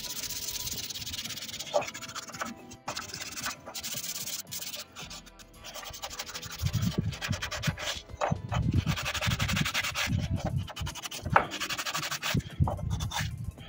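Sandpaper rubbed by hand over a small wooden slingshot handle, a scratchy rasp in repeated back-and-forth strokes that grow heavier about halfway through, over faint background music.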